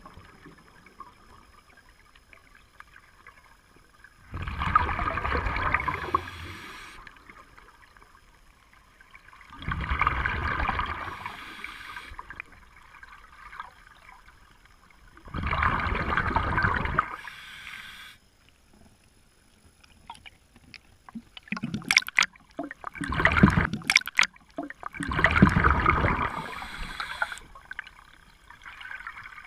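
A scuba diver breathing through the regulator underwater: bubbling exhalation bursts about every five to six seconds, each lasting two to three seconds, with quiet inhalations between. Several sharp clicks or knocks come in a short cluster about two thirds of the way through.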